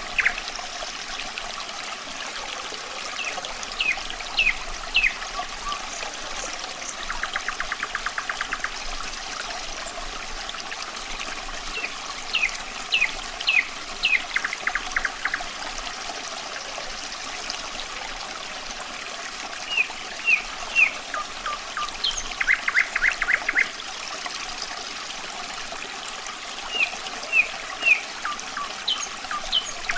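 Running water trickling steadily under a nightingale singing: phrases of short sharp whistled notes and fast trills of rapidly repeated notes, coming every few seconds.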